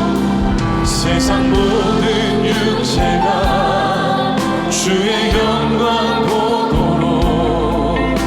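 Live worship band playing a Korean praise song, with singers holding wavering sustained notes over keyboard, bass and drums. Bright cymbal strikes come about one, three and five seconds in.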